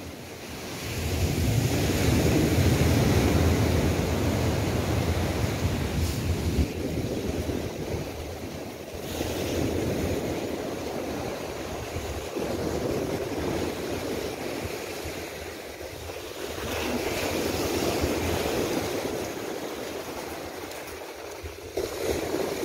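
Ocean surf washing up on a sandy beach, the rush of water swelling and ebbing three times.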